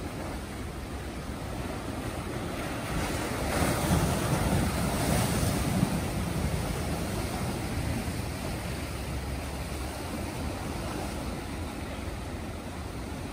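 Ocean surf breaking against jagged black lava rock. A steady wash swells into a louder crashing wave about three seconds in, then eases back.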